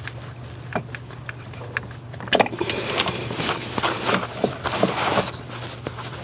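Hands working spark plug wire boots off and onto an ignition coil pack: scattered small clicks, a sharper click about two seconds in, then a stretch of rubbing and scraping. A steady low hum runs underneath.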